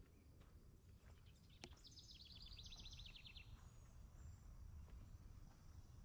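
A songbird's rapid dry trill of short high notes, lasting about a second and a half, with faint footsteps on a forest trail.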